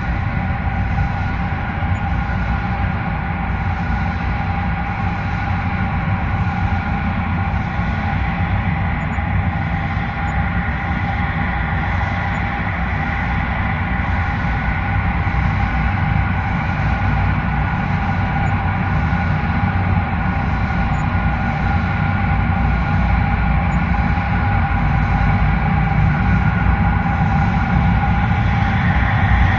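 Dark horror ambience drone: a steady low rumble under several sustained droning tones, with a faint hiss above that swells about once a second.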